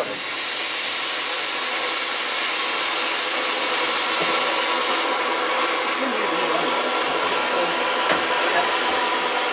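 Steam escaping from the Kitson 0-6-0T tank engine with a loud, steady hiss that comes on suddenly as a valve on the footplate is opened.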